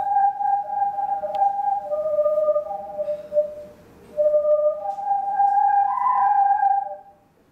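Corrugated plastic sound hose (whirly tube) being twirled in circles, whistling in clear, pure tones that jump between a few notes as the air rushing through it speeds up and slows. It dips briefly midway, climbs to its highest note late on, then stops.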